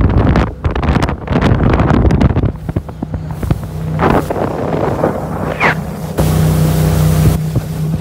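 Motorboat engine running steadily under heavy wind buffeting on the microphone. The engine's tone comes through plainly after a couple of seconds, and there is a louder burst of rushing noise about six seconds in.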